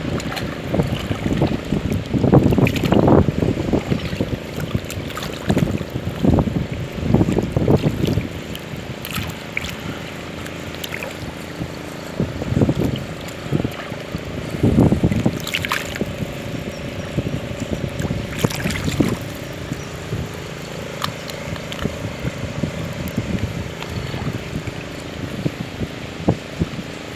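Lake water sloshing and splashing around a wading fisherman as he works fish out of a net, with wind buffeting the microphone in irregular low gusts, heaviest in the first eight seconds. A faint steady hum runs underneath.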